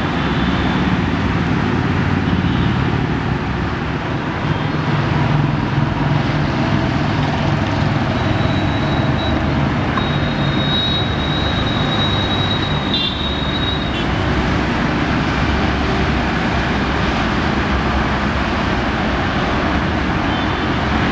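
Steady low mechanical hum with a haze of traffic-like running noise, and a thin high whine that comes in for several seconds in the middle.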